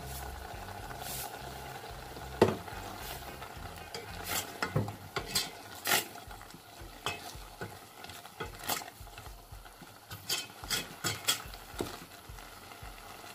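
Wooden spatula stirring greens and cooked lentils in a stainless steel pot, with irregular scrapes and knocks against the pot's side over the soft steady bubbling of the simmering mixture.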